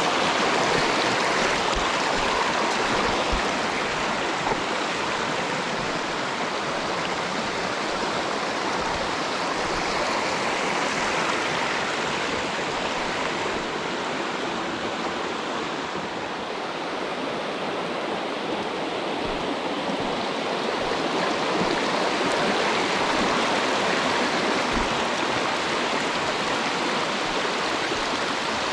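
Mountain stream flowing, a steady even rush of water.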